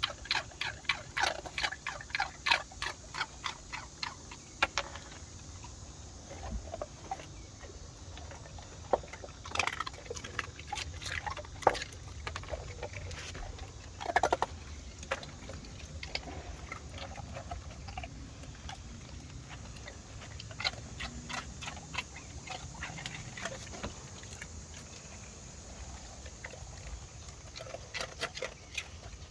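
Dogs moving about on a wooden deck: quick runs of clicks and taps, several a second, in bursts at the start, in the middle and near the end, with quieter stretches between.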